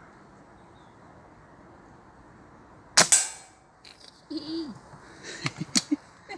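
A single shot from a BSA R10 Mk2 .177 pre-charged pneumatic air rifle about three seconds in: one sharp crack with a short ring-off. A few lighter clicks follow near the end.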